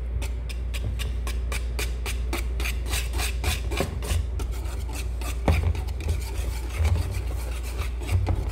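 Pancake batter being stirred briskly by hand in a stainless steel bowl, the utensil rasping against the metal in quick even strokes, about four a second. The batter is being beaten to the right thickness.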